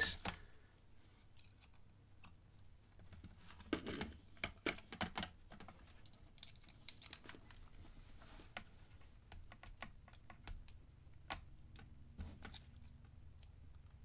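Faint, irregular metallic clicks and scratches of a pick and tension wrench working the pin stack inside a 50 mm padlock's keyway, with a louder cluster of clicks about four to five seconds in.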